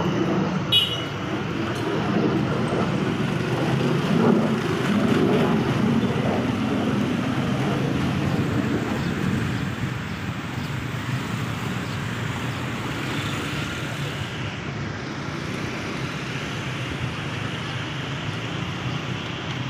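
Diesel-electric locomotive engine running with a steady rumble, louder in the first half and settling quieter from about ten seconds in. A short high-pitched sound comes about a second in.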